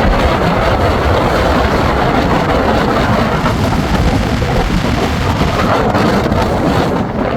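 Steady road and wind noise of a car driving at speed.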